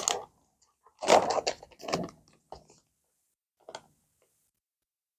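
Handling noise: a rustle of packaging about a second in, followed by a few faint knocks.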